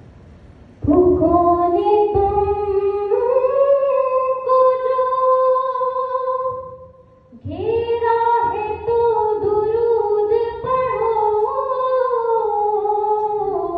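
A girl's solo voice singing a naat unaccompanied, in long held, melismatic lines. It starts about a second in, breaks off briefly around the middle, then carries on.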